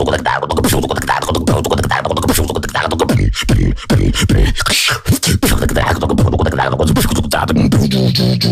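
Beatboxing: rapid vocal drum hits and clicks over a continuous deep bass hum, with a short break about five seconds in.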